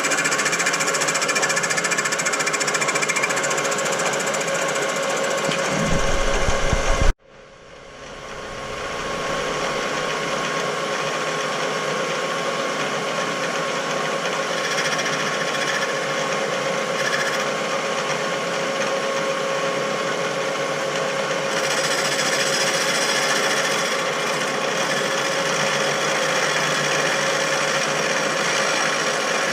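Machine tool running steadily while boring out a Nathan K5 train horn bell to a big bore. The sound cuts off abruptly about seven seconds in, then fades back up to the same steady running.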